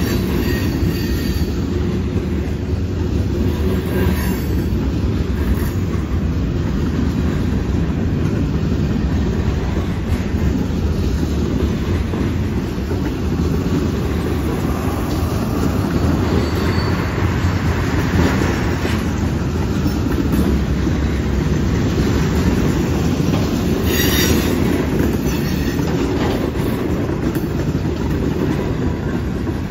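Freight cars (covered hoppers, tank cars and a boxcar) rolling slowly past on the rails, a loud steady rumble of steel wheels on track. Brief high wheel squeals come a few times as the cars enter the curve, the clearest about 24 seconds in.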